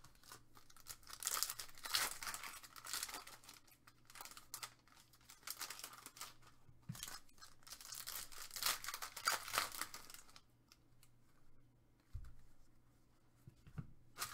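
Foil wrapper of a Panini Select trading-card pack being torn open and crinkled in repeated bursts, along with the cards being handled. It goes quieter after about ten seconds, with a soft low thump a couple of seconds later.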